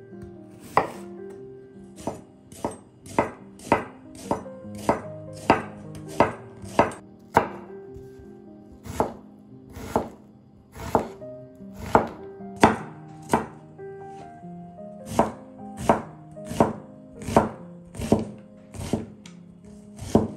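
Kitchen knife chopping vegetables on a cutting board: single sharp cuts, roughly one every half second to second, with two short pauses. Soft background music runs underneath.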